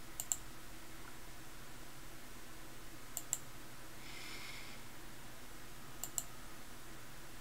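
Computer mouse button clicked three times, about three seconds apart, each a quick press-and-release pair of ticks, over a faint steady low hum.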